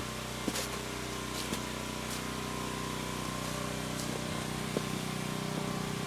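An engine running steadily at constant speed, with a thin high whine above its hum. Soft footsteps crunch in snow about once a second.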